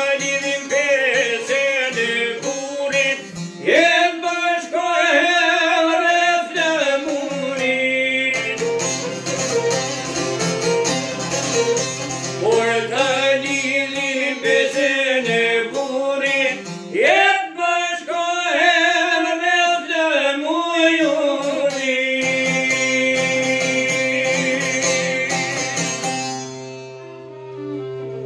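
Albanian folk song played on a long-necked plucked lute and a violin, with a man singing phrases between instrumental passages. Near the end the singing stops and the sound thins and drops quieter.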